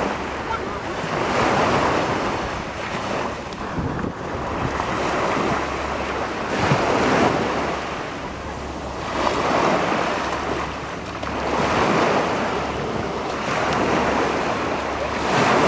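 Small waves breaking on a sandy beach and washing up the shore, the surf swelling and fading about every two to three seconds. Wind buffets the microphone with a steady low rumble underneath.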